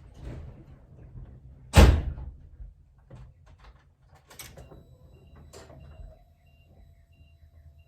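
A vehicle door shuts with one sharp slam about two seconds in, followed by a couple of lighter knocks. After these comes a faint steady tone with soft beeps repeating about twice a second.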